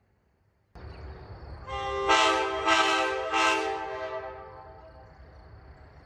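Nathan K5LA five-chime air horn from Amtrak F40 370, blown on a single-stage manual valve. The chord builds in about half a second, swells three times as the valve is worked, then dies away over a second or two. Crickets give a steady high chirr underneath.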